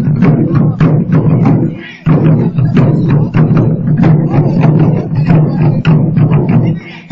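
Ensemble of large Chinese barrel drums beaten with sticks in a fast, dense rhythm, with a short break about two seconds in and another near the end.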